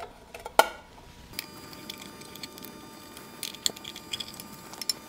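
Small clicks and taps of a screwdriver and wire connections being handled at an electric motor's wiring terminal, with one sharp click about half a second in and a few lighter clicks near the end.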